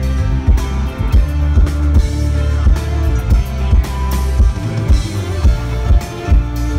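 Live band playing through a PA: electric guitar, bass guitar and drum kit, with a heavy bass line under a steady drum beat, heard from the audience.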